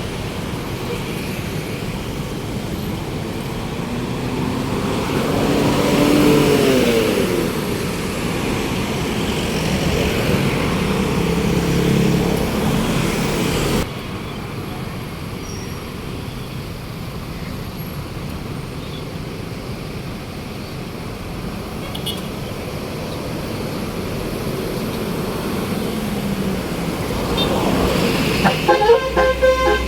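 Roadside traffic noise of buses and cars driving past, one engine note rising and falling as it passes about six seconds in. Near the end a bus's telolet basuri horn starts up, sounding several steady tones in stepped changes.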